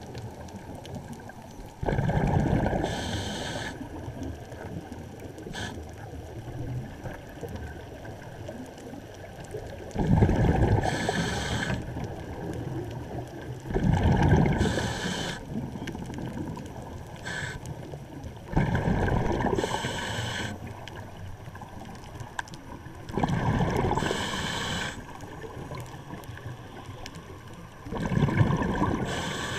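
Scuba diver breathing through a regulator: six rushes of exhaled bubbles, each starting suddenly and ending in a short hiss, about every four to five seconds with one longer pause, over a steady low underwater background.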